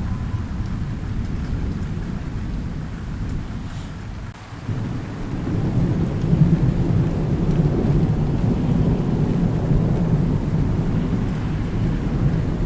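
Thunderstorm: low rolling thunder over steady rain. The rumble fades to a brief lull about four seconds in, then a new roll of thunder swells and rumbles on.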